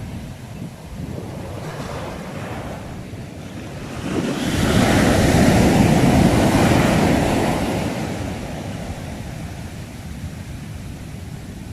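Sea waves washing onto the shore. One wave swells up about four seconds in, is loudest for a few seconds and then drains away, with a low wind rumble on the microphone.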